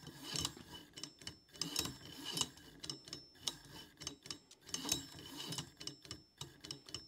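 A stepper motor turning a safe combination lock's dial, the lock's wheel pack clicking and ticking irregularly as the machine dials through test combinations, with a faint high motor whine under it.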